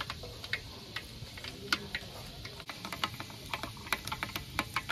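Hot oil frying spices in a large aluminium pot over a wood fire, popping and spitting in irregular crackles.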